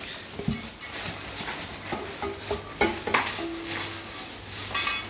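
Plastic wrapping crinkling and rustling as it is pulled off a new cookware piece, with irregular sharp crackles that bunch up near the end.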